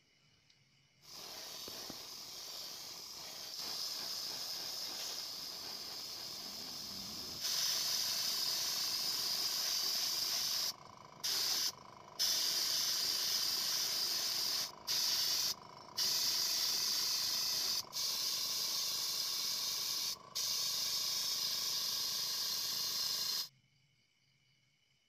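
Paint spray gun hissing as it sprays paint onto model parts, lighter at first and then louder, with about six short pauses as the trigger is let off and pressed again.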